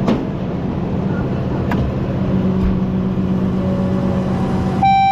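Vehicle engine running with a steady low hum, and a sharp click at the start. Near the end a loud, steady, high electronic tone starts abruptly.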